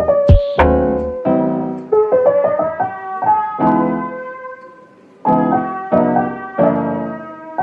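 Background piano music: notes and chords struck and left to ring and fade, with a brief lull about five seconds in before the next chord.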